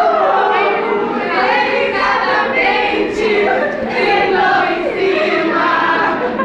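A group of voices singing together, loud and overlapping.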